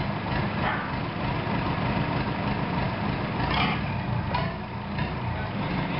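Bedford four-cylinder diesel engine running steadily on a test stand.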